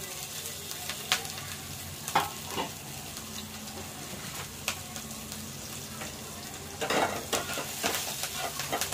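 Green chillies and whole spices (cumin and crushed coriander seeds) sizzling in hot mustard oil in an aluminium kadai, a tempering, with a steady hiss and a few sharp clicks. From about seven seconds in, a spatula scrapes and taps against the pan as the spices are stirred.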